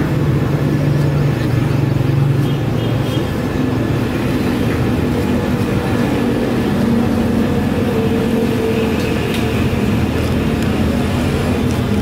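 Steady engine hum of motor traffic on the street, its pitch shifting about eight seconds in, with a few faint clinks over it.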